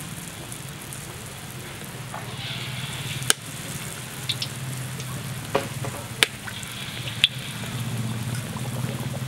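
Batter-coated squid deep-frying in hot oil in a wok: a steady sizzle broken by about five sharp spattering pops. The sizzle swells as more pieces go into the oil.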